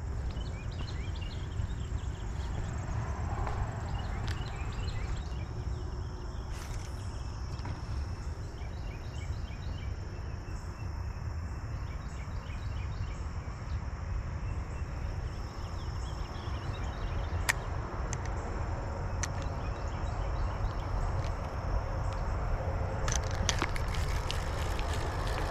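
Outdoor ambience: a steady low rumble, with faint high chirps scattered through and a thin, steady high-pitched tone. A few sharp clicks come in the last several seconds.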